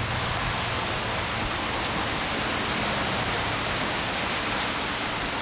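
Heavy rain pouring down in strong wind: a steady, even rush of noise.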